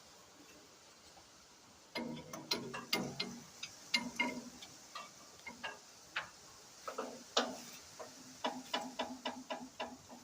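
Sharp metallic clicks and taps of hand tools working on metal. They start about two seconds in, scattered at first, and settle into a fairly even run of about six clicks a second near the end.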